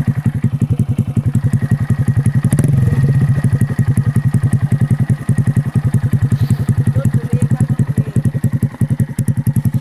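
Honda MSX125's single-cylinder four-stroke engine idling through a can-style aftermarket exhaust muffler: a steady, even train of fast exhaust pulses with a soft tone.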